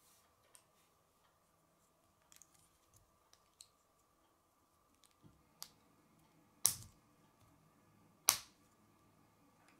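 K'nex plastic rods and connectors clicking as they are handled and fitted together: light scattered clicks, then two sharp snaps about a second and a half apart in the second half as pieces lock into place.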